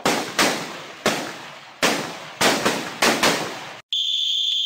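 Recorded rifle shots in quick succession, each with a short fading echo, from a rapid-fire rifle training app's background fire. About four seconds in they stop and a steady high whistle starts, the app's signal that the series time is up.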